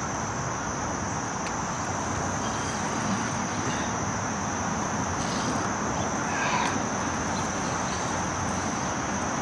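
A steady, high-pitched chorus of insects droning without a break, over a low background hiss.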